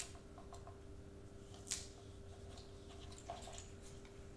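Faint handling noises as tape is worked by hand on paper pieces: a few soft clicks and ticks, the sharpest about two seconds in, over a steady low hum.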